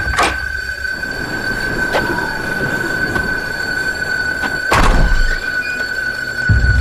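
Film sound design: a steady high-pitched whine held throughout, with a sharp hit just after the start and a second about five seconds in that carries a deep boom.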